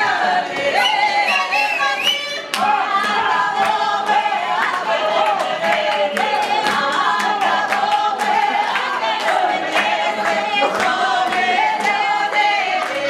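A group singing a lively folk song together, accompanied by acoustic guitar, with hand clapping.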